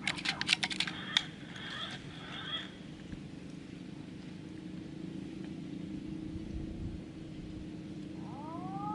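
A quick run of sharp clicks in the first second, then a steady low hum, with a bird's gliding whistled calls starting near the end.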